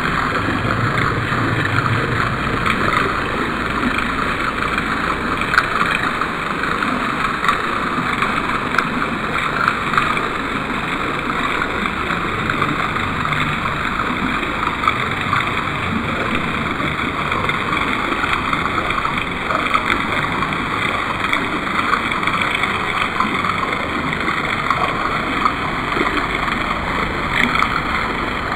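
Thin streams of water from a stone fountain's spouts splashing steadily into the pool of its basin, a continuous hiss flecked with small drip-like patters.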